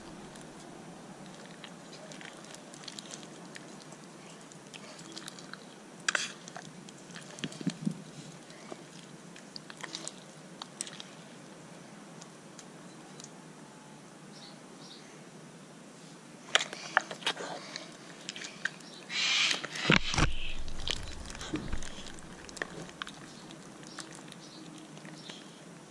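Glittery homemade slime being squished and stretched by hand: scattered sticky clicks and wet squelches, with a louder flurry and a thump about three quarters of the way through.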